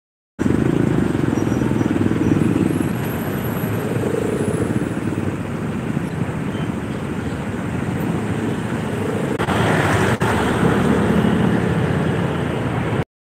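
Motorcycle engine running at low speed amid dense road traffic, heard from the rider's seat, with the steady rush of surrounding vehicles.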